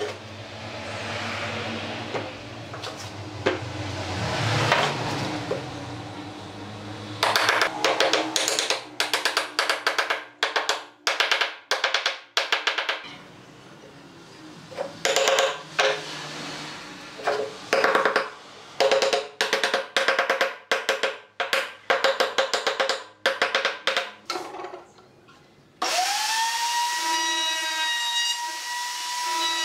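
A hammer striking wood again and again, in quick runs of sharp, ringing knocks. Near the end an electric router in a router table starts up, its whine rising quickly and then holding steady.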